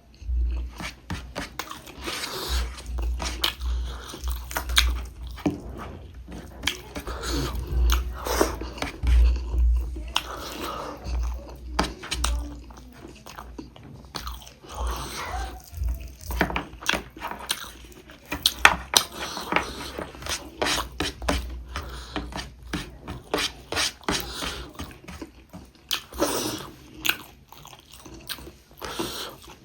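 Close-miked eating: a person chewing and biting through a meal of pork ribs with rice, salad and chillies, with irregular crunches and mouth clicks throughout.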